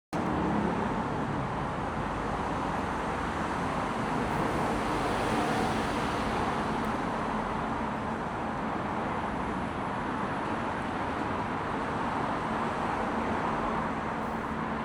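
Steady road traffic noise, a continuous rumble of passing cars with no single vehicle standing out, cutting in suddenly at the start.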